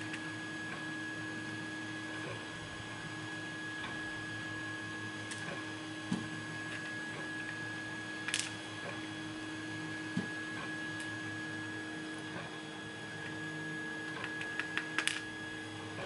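Small metal lock parts (pins, springs and the brass plug of a pin-tumbler cylinder) clicking as they are handled and set down in a parts tray: a few scattered single clicks, then a quick run of clicks near the end. A steady electrical hum runs underneath.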